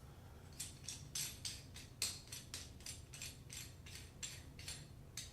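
A quick run of light, crisp clicks or crinkles, about four a second, from small faucet parts or their packaging being handled.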